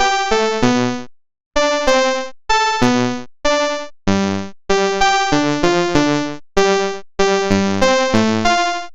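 Homemade software synthesizer playing a run of short notes, about three a second, each starting sharply and fading away, some with a low bass note under them. The notes pause briefly a little over a second in.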